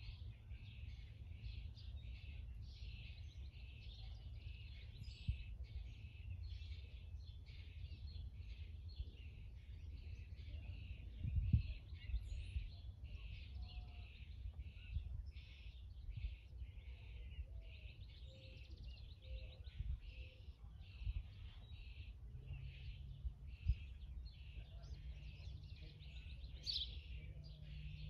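Birds chirping and chattering continuously outdoors over a low, uneven rumble. A faint low steady hum joins near the end.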